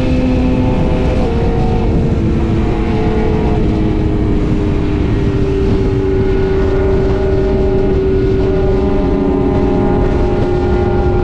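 BMW S1000RR inline-four engine running at highway speed, its pitch stepping down over the first few seconds as the bike slows, then holding steady. Heavy wind rush on the microphone under it.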